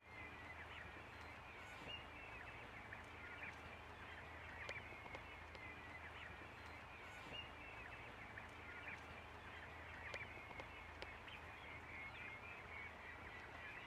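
Faint calling of a flock of domestic turkeys: many short, high, overlapping calls over a low steady hum.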